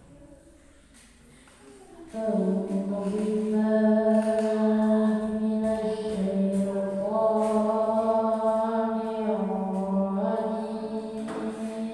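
A boy chanting Qur'an verses in the melodic qiro'at style, starting about two seconds in. He holds long notes that step and slide slowly from pitch to pitch.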